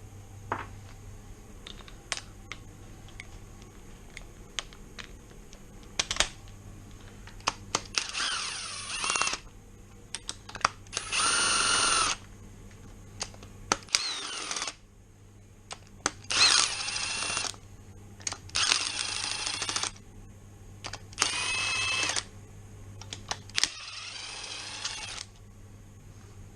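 A cordless power tool runs in seven short bursts of about a second each, spinning out the Rover V8's cylinder head bolts, with scattered clicks of metal tools between the bursts.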